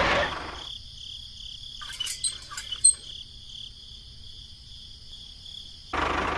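Crickets chirping steadily in a pulsing high band. A few small clicks and knocks come about two to three seconds in, and a louder broad noise starts near the end.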